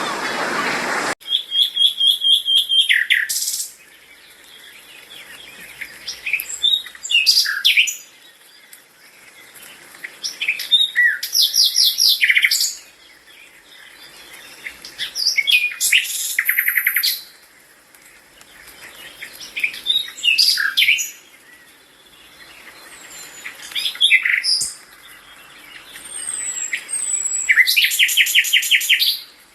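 A small bird singing: short, fast trilled phrases repeated about every four seconds, with quieter chirps between them. A rush of water is heard for about the first second before it cuts off abruptly.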